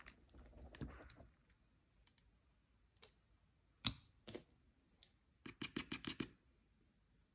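Faint clicks and taps of a nail polish bottle and nail-stamping tools being handled on a tabletop: a few single taps, the sharpest about four seconds in, then a quick run of about eight light clicks around six seconds.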